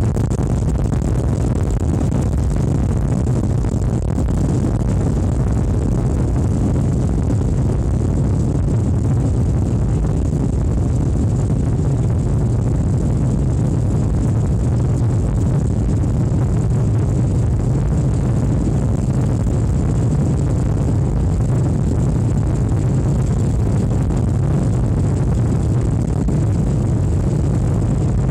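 Jet airliner's engines running at high takeoff thrust, heard inside the passenger cabin as a loud, steady, deep rumble.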